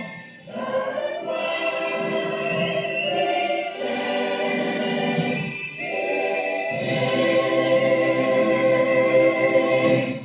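A choir of voices singing a song's closing chorus together over musical backing. The last chord is held for about three seconds and then cuts off sharply.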